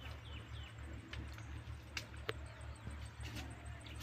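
Faint outdoor ambience in a fruit orchard: a low, pulsing rumble, a few birds chirping near the start, and several light clicks in the middle.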